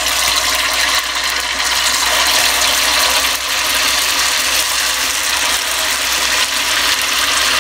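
Thick adai (lentil) batter for thavalai vadai deep-frying in hot oil: a loud, steady crackling sizzle as the oil bubbles hard around the batter.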